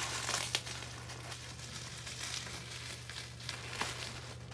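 Packaging being handled as a mailed package is opened by hand: irregular short crinkling and rustling scratches.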